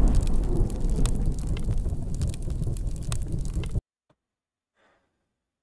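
Deep rumbling boom with crackle, the fading tail of a cinematic intro sound effect. It cuts off abruptly a little under four seconds in, leaving near silence.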